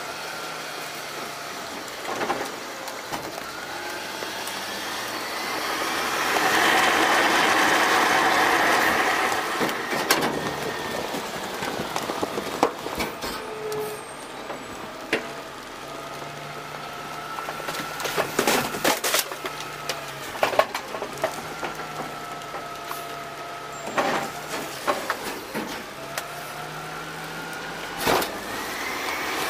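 A DaDee Scorpion full-eject automated side loader garbage truck packing: its hydraulics whine, rising and falling in pitch as the packer panel cycles, and swell to a louder run for several seconds early on. Sharp knocks and clatters come throughout as garbage drops into the hopper and metal parts bang.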